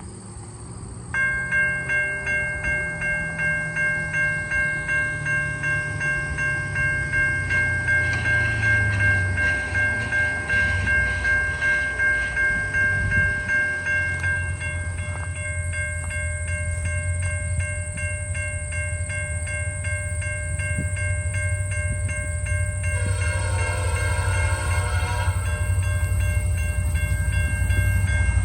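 A railroad crossing bell starts ringing about a second in, beating about twice a second, as the low rumble of approaching CN diesel locomotives grows. Near the end the lead unit, 8860, sounds its wonky Nathan P5 air horn in a chord of several notes for a few seconds.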